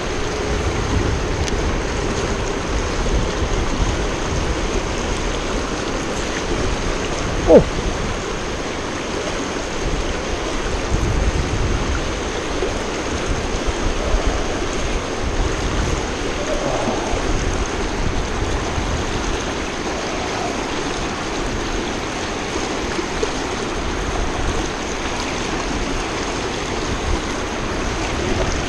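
Shallow, fast river rushing steadily over rocks. One brief, sharp sound stands out about a quarter of the way in.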